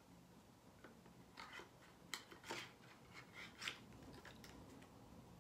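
Faint handling of small cardboard packaging: a cluster of short, crisp crinkles and clicks through the middle, the last one the loudest.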